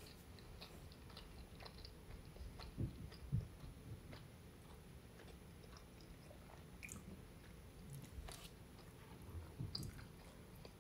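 Faint close-miked chewing of a mouthful of turkey lasagna, with small wet clicks and a few soft low thumps, the loudest about three seconds in.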